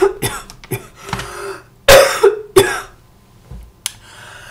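A woman's coughing fit: about five harsh coughs in quick succession, the loudest about two seconds in, with gasping breaths between them.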